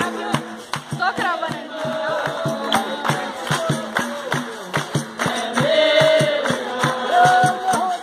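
Capoeira roda music: berimbau and atabaque drum keeping a steady beat, with hand clapping and a group singing.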